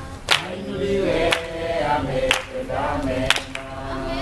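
A small congregation singing a worship song together, with a sharp hand clap on the beat about once a second.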